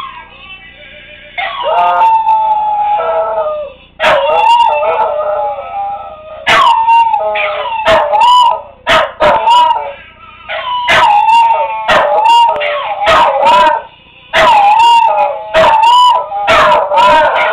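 Dog howling along to music, a string of long pitched howls that waver and slide up and down, broken by short sharp sounds. It grows louder and more insistent from about four seconds in.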